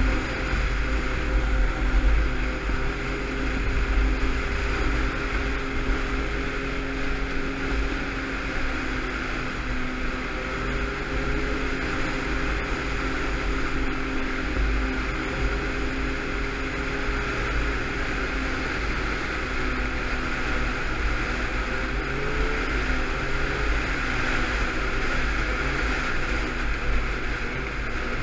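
Yamaha snowmobile engine running at a steady cruise along a trail, with a brief shift in pitch about three-quarters of the way in. Wind buffets the microphone throughout.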